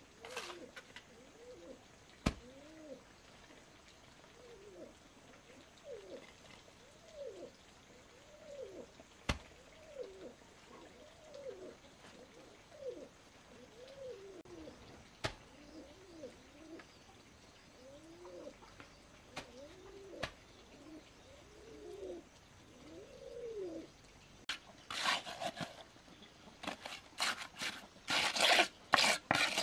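A bird calling over and over, each call a short rise-and-fall note repeated about every second, with three single sharp knocks in between. Near the end a steel trowel scrapes and works wet mortar against concrete blocks, much louder than the calls.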